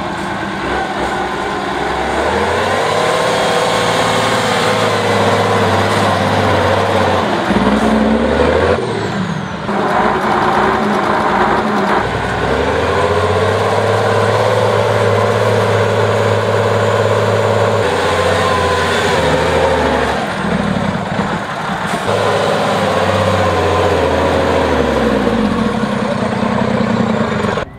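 Six-wheeled trial truck's diesel engine labouring under load as it climbs a steep dirt bank. It revs up and holds high three times, dropping briefly in between.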